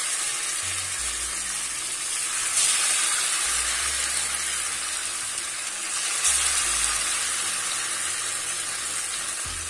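Poha-and-dal patties shallow-frying in hot oil in a pan, a steady sizzle. The sizzle swells twice, about two and a half and six seconds in, as more patties go into the oil.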